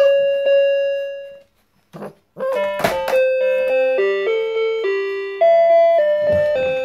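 Children's toy electronic keyboard sounding electronic tones as puppies walk on it: one note held for about a second and a half, then a pause and a knock about three seconds in, followed by a quick run of changing notes like a simple tune.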